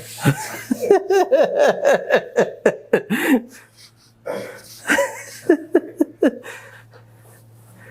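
A person laughing in quick repeated bursts, then a second, shorter round of laughter about four seconds in.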